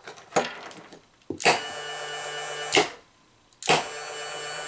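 A small DC gear motor switched through a magnetic contactor: it starts with a sharp clack, runs with a steady whine for about a second and a half, and stops with another clack. About a second later it starts again and keeps running. A lighter click comes just before the first start.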